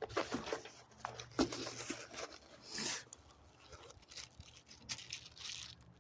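Rummaging through a tire plug kit's pouch: plastic packaging crinkling, with small clicks and scrapes of tools being handled and a longer rustle about halfway through.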